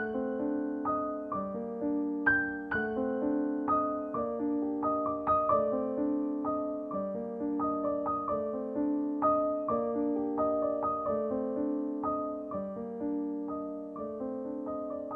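Gentle solo piano background music, notes struck at an unhurried pace, each one fading away.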